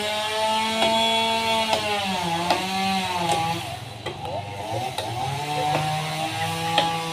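Chainsaw running and cutting wood, its engine pitch sagging under load in the middle and steadying again, with occasional sharp clicks.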